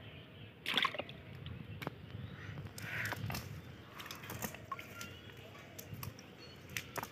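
A cast net is handled by hand on sandy ground among dry leaves: scattered rustling, scraping and small taps as the mesh is pulled and shaken to free caught fish. There are louder rustles just under a second in and around three seconds in.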